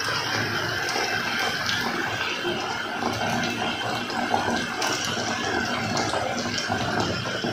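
Potato triangle snacks frying in hot oil in an iron kadai: a steady sizzle with fine bubbling crackle.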